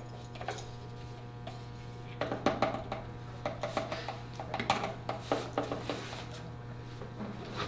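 A spatula scraping and tapping out the last metallic pigment from small metal cans, with irregular clinks and knocks, busiest in the middle. A steady low hum runs underneath.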